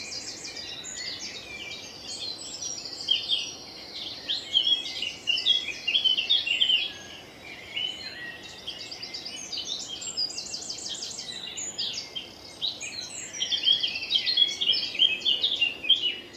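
Spring dawn chorus: several songbirds singing at once, among them a chiffchaff and a blackcap, with rapid trilled phrases recurring every few seconds over a faint steady background hum.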